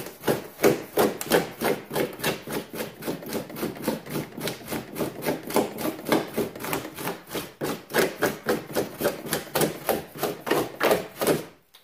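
Aluminium ice cream scoop scraping and digging at the rigid foam of a kayak's cockpit corner in quick repeated strokes, about four a second, shaving the corner into a radius so fabric will wrap around it.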